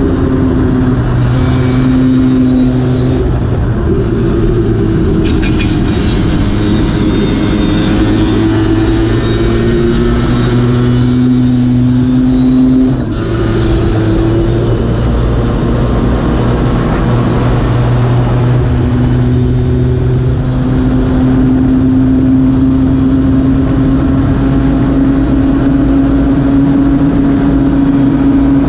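Lambretta racing scooter's two-stroke single-cylinder engine under hard acceleration, heard onboard. The engine note climbs steadily in pitch and drops back at gear changes about 3, 13 and 20 seconds in, then rises in one long pull near the end.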